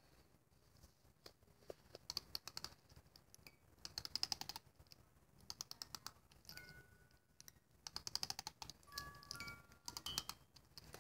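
Faint wind-up music box inside a plush toy being wound: several bursts of rapid ratchet clicking. From about two-thirds of the way through, single chiming notes sound in between.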